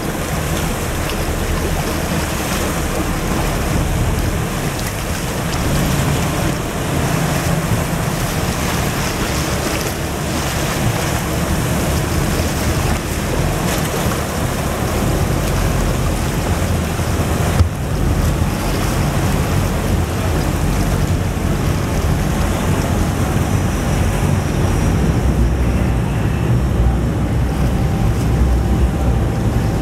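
Rough sea water washing and splashing over the deck of an Atlantis tourist submarine as it submerges, with steady heavy wind rumble on the microphone.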